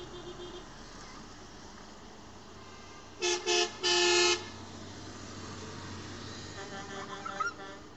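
A vehicle horn tooting twice briefly, then one longer blast, over the steady noise of passing tractors and trucks.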